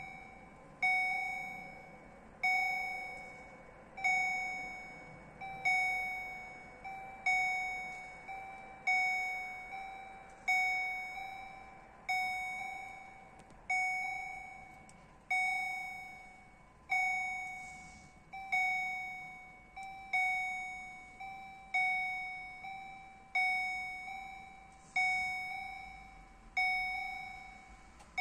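The electronic warning bell (EHL type) of an automatic level crossing ringing in a regular rhythm, one ding about every second and a half, each fading before the next. It sounds while the barriers are down, warning road users of an approaching train.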